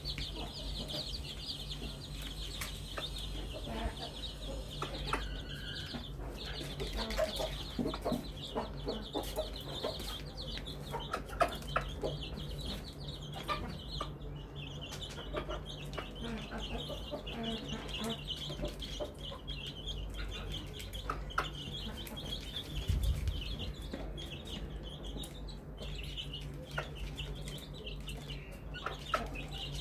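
A brood of young chicks peeping nonstop in a rapid, high chatter while a mother hen clucks now and then, with light pecking taps on the feed tray, over a steady low hum.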